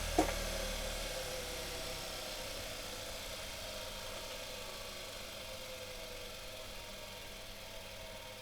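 Bench grinder fitted with sisal and sewn cotton buffing wheels, just switched off and coasting down. A click comes just after the start, and the motor's low hum drops out about a second in. The whir of the spinning wheels then fades slowly as they run down.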